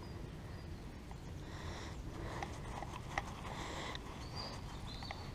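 Faint rubbing and scraping of soil as a freshly dug find is rubbed clean between a gloved finger and thumb, with a few small clicks of grit, over a low steady rumble.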